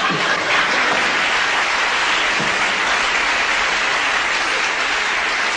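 Sitcom studio audience applauding steadily.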